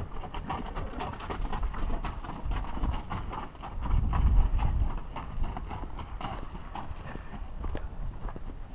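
Hoofbeats of a Missouri Fox Trotting mare and her colt walking on gravel, an uneven run of sharp crunching clip-clops, with a person's footsteps among them. A brief low rumble about four seconds in is the loudest moment.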